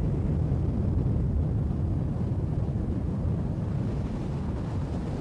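Steady low rumble of a car travelling at motorway speed, with wind buffeting the microphone.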